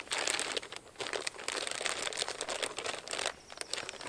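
Clear plastic packaging bag crinkling and rustling as it is handled and pulled open, a dense run of small crackles with a brief lull about three and a half seconds in.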